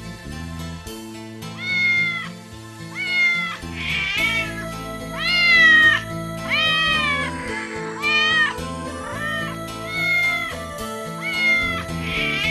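A cat meowing again and again, short arched meows about once a second, over background music.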